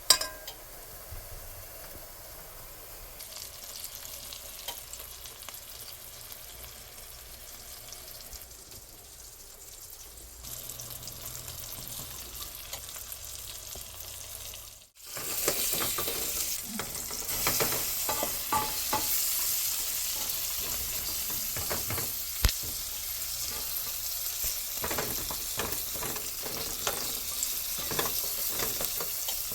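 Food sizzling in a frying pan while a utensil stirs and scrapes it. The sizzle is quiet at first. After a brief drop about halfway through it comes back much louder, with frequent clicks of the utensil on the pan and a sharp knock at the very start.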